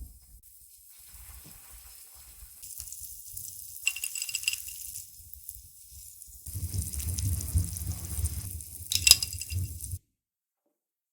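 Kitchen handling sounds of food being prepared: scattered light clinks and rattles of utensils and dishes, with a sharper clink just after nine seconds. The sound cuts off abruptly about ten seconds in.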